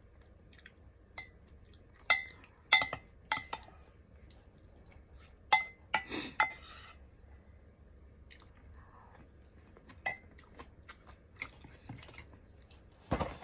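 A spoon clanging against a ceramic soup bowl while scooping seaweed soup: a series of sharp clinks, each ringing briefly. They come in bunches, several in the first half and more near the end.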